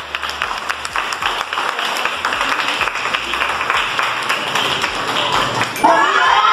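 A group of people clapping and applauding in a large room. Near the end, excited voices break out, shouting and cheering.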